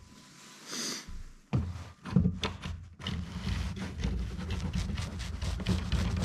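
A plastic glue bottle squeezed along a wooden strip, sputtering air and glue, among light clicks and knocks of thin wooden canoe strips being handled.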